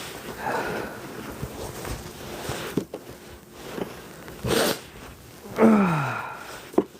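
Irregular scraping and rustling as a person works through snow with a shovel, with a sharp noisy burst partway through. Near the end comes a short groan that falls in pitch.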